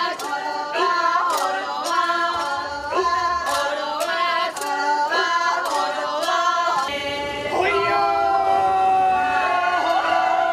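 Ainu traditional song and dance: women sing a short repeated chant in several voices, kept in time by sharp hand claps about twice a second. About seven seconds in the claps stop and a man's long, held cry takes over as he raises a sword.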